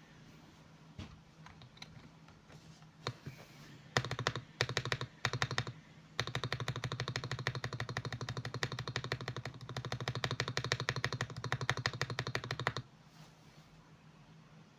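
Lubed Akko mechanical keyboard switches on a GMK67 keyboard being typed on. A few single keystrokes come first, then short bursts about four seconds in, then fast continuous typing from about six seconds to nearly thirteen seconds, which stops abruptly.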